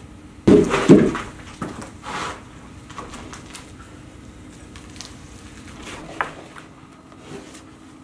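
Heavy wooden timbers knocking together as a log-deck runner is set into place: two loud wooden thuds about half a second and a second in, another about two seconds in, then a few lighter knocks.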